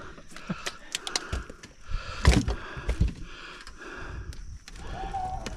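Handling noises: scattered clicks and knocks, with one louder thump about two seconds in.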